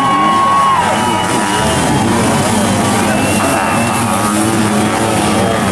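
Several sidecar motocross outfits' engines revving under hard acceleration, their pitches rising and falling as they shift, with one engine held at high revs for about the first second before dropping away.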